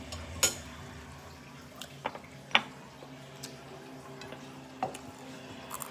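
Close eating sounds while eating grilled chicken by hand: about five short, wet mouth smacks and clicks, the loudest about two and a half seconds in.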